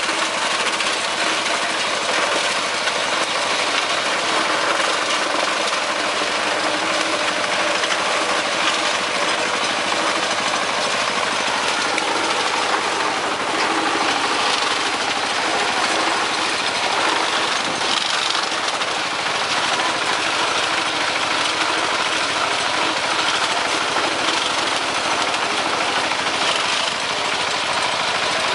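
Engine-driven farm machine running steadily, a dense mechanical noise that goes on without a break.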